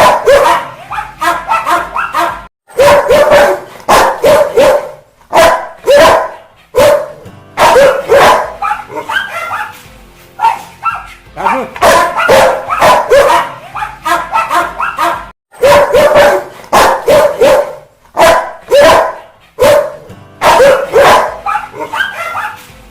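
Rottweiler barking aggressively in repeated volleys of several quick, deep barks, with short pauses between the volleys.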